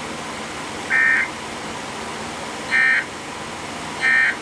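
Three short bursts of Emergency Alert System data tones, the two-tone buzzing of the end-of-message signal that closes a weather warning broadcast, about a second and a half apart over steady radio hiss.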